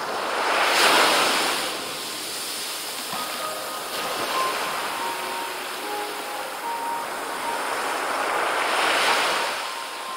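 Small ocean waves breaking and washing up a sandy beach, a steady surf hiss that swells with a louder break about a second in and another near the end.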